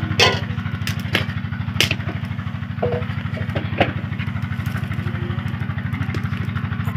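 A small engine running steadily with a fast, even pulse, with a few sharp clicks and knocks of cooking utensils over it.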